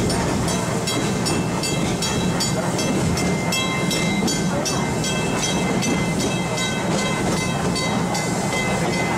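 Small steam train running, heard from an open passenger car: a steady rumble with a quick rhythm of sharp beats, about three to four a second, and a thin high squeal from the wheels that comes in about three seconds in as the train rounds a curve.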